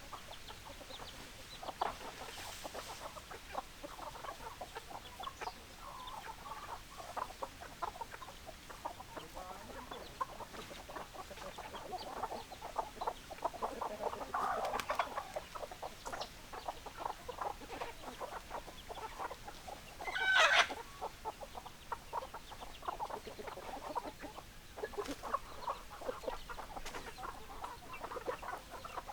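A flock of hens clucking continually in short, overlapping calls, with one loud, sharp squawk about twenty seconds in.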